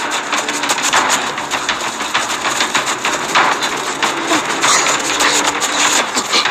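Fast running footsteps crunching through snow.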